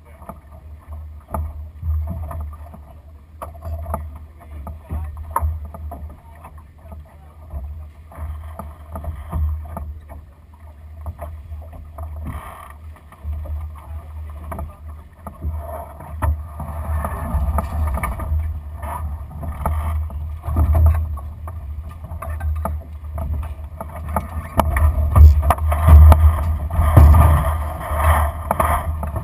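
Wind buffeting the microphone on a Lightning sailing dinghy under way, a steady low rumble with water noise along the hull. From about halfway through it grows louder, with rustling and knocks as the crew takes down the spinnaker.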